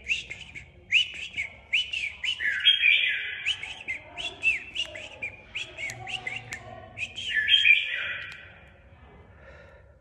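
Red-whiskered bulbul calling: a quick run of short falling chirps broken by two harsher, rasping calls, stopping about eight and a half seconds in.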